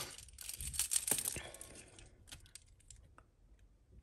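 Costume jewellery clinking and rustling as hands rummage in a pile of metal bangles, beads and chains, thinning after about a second and a half to a few light clicks as a metal bracelet is handled.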